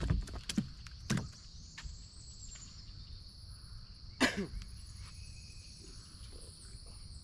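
Steady high-pitched insect chorus, with a few sharp knocks in the first second and one louder knock about four seconds in.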